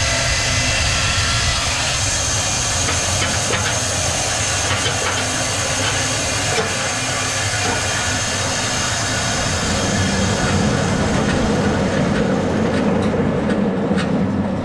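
Sawmill machinery running: a steady mechanical din with a high whine and scattered clicks. About ten seconds in it changes to a heavier, lower rumble, and the high whine fades.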